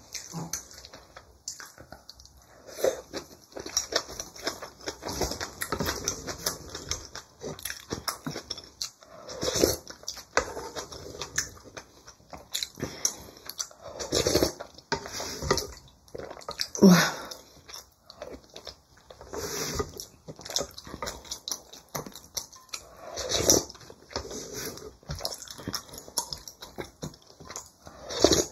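Close-miked mukbang eating: chewing and slurping of kimchi and watery rice in irregular bursts, with light clicks of chopsticks and spoon. One short falling vocal sound a little past halfway is the loudest moment.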